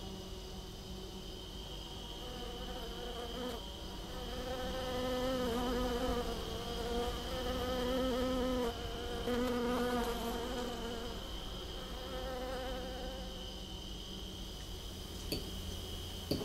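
Honeybees buzzing close by as they fly around their hive, a low hum that swells and breaks off a few times from about four to eleven seconds in. Under it runs a steady high trill of insects throughout.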